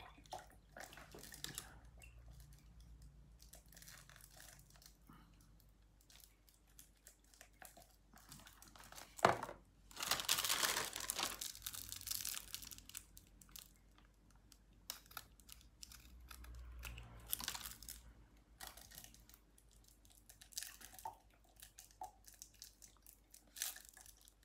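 Scissors snipping open small paper milk cartons, with the cartons and their plastic wrap crinkling and milk being poured from the cartons into a plastic jug. A sharp snap about nine seconds in is the loudest sound, followed by a couple of seconds of hissing rustle.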